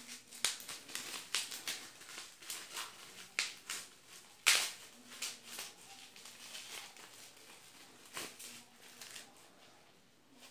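Bubble-wrap packaging rustling and crackling in the hands as a small pocket mirror is unwrapped, a string of short crackles with one sharper, louder crack about four and a half seconds in.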